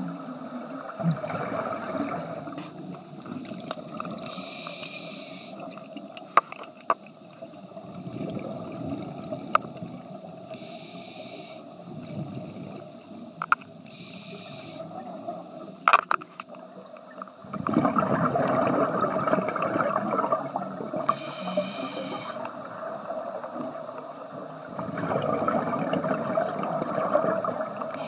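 Scuba diver breathing through a demand regulator underwater: short hissing inhalations every few seconds, each followed by a longer burble of exhaled bubbles, with a few sharp clicks in between.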